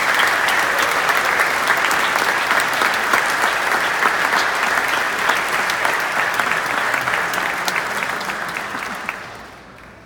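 Audience applauding, a dense mass of hand claps that fades away near the end.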